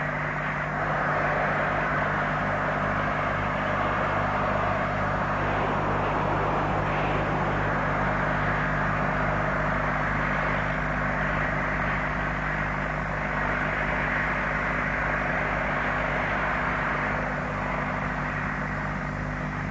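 Steady engine noise: an even drone with a constant low hum, unchanging throughout.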